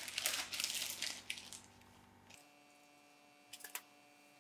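Plastic bag crinkling and rustling for about a second and a half as coloured desiccated coconut is taken out of it, then two light ticks near the end.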